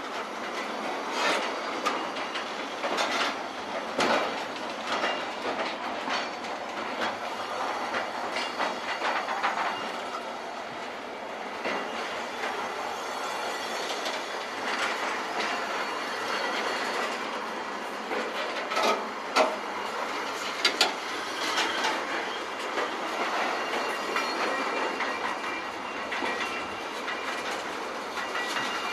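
A train passing at close range, its wheels rolling and clattering over the rails with a continuous run of irregular sharp clicks and knocks. The loudest knocks come about two-thirds of the way through.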